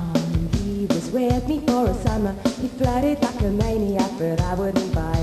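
Rock band playing: a woman's sung vocal over electric guitars and a drum kit keeping a steady beat.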